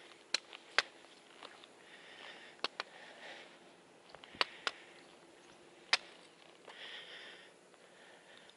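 A hiker walking on a rocky trail: footsteps with about seven sharp clicks and taps scattered through, and soft breathing and sniffing swells in between.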